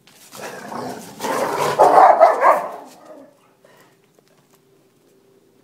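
Boxer dog barking angrily in play over a chew toy, a rough burst lasting about three seconds and loudest around two seconds in.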